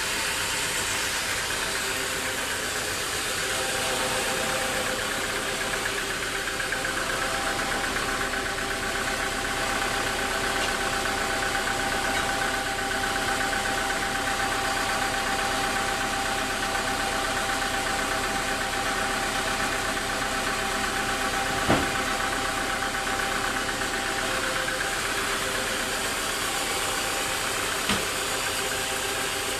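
Bandsaw sawmill machinery running steadily, a continuous mechanical drone with a high whine, and two sharp knocks, about 22 and 28 seconds in.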